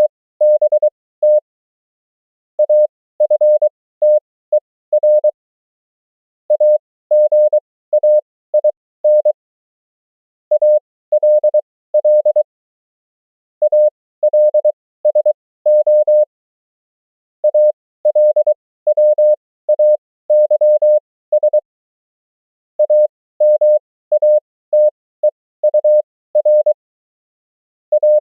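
Morse code (CW) sent as a single steady sidetone, keyed into dots and dashes at 20 words per minute with 23 wpm character speed. The words come in short clusters with pauses of about a second between them, as in an amateur-radio practice drill of common QSO words and abbreviations.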